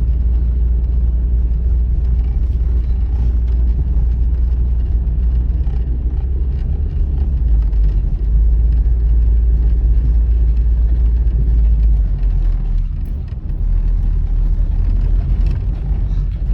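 Honda Civic driving: a steady low rumble of engine and road noise, which shifts down about two thirds of the way through and dips briefly soon after.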